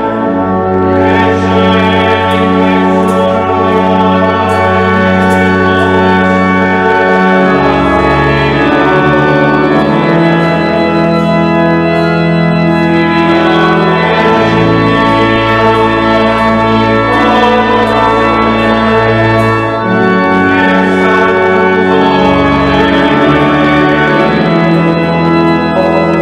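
Church organ playing slow, held chords over a deep pedal bass, the harmony changing every few seconds.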